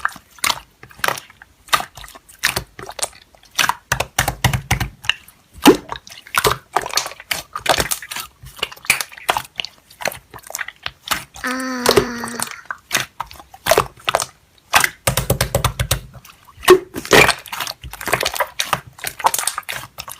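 Slime being squeezed and poked, a dense run of wet clicks and crackling pops.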